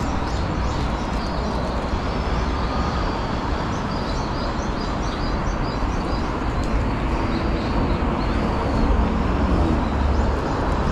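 Road traffic at a busy city intersection: cars and taxis passing with a steady rumble of road noise, one engine note rising and falling a little past halfway. Small birds chirp over it.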